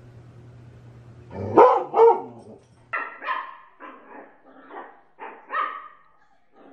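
A large black dog gives two loud barks, then a small long-haired puppy yaps in a quick run of about seven short, high-pitched barks, crouched in a play bow.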